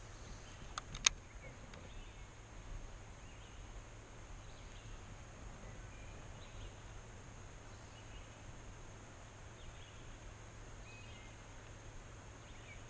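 Quiet river ambience: faint scattered bird chirps over a steady high insect hum, with two sharp clicks about a second in.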